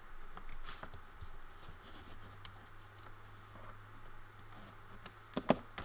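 A scoring tool scraping along thick paper on a scoring board, with a few light clicks and a sharper tap near the end.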